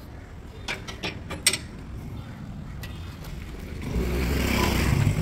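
Outdoor ambient sound on a handheld phone: a few sharp clicks and taps in the first second and a half, then a steady low rumble that swells about four seconds in.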